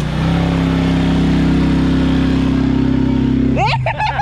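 A motor vehicle engine running at a steady pitch, rising slightly just after the start, then a voice briefly near the end.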